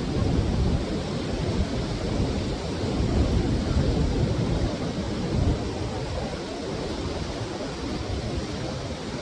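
Waterfall rushing steadily, a continuous deep noise of falling water.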